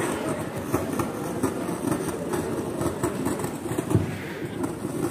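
Indistinct murmur of a seated crowd talking among themselves over a steady background rumble, with no single voice standing out.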